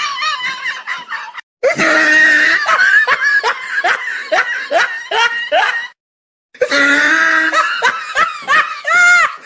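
Laughter in quick repeated ha-ha bursts, broken twice by a brief silence.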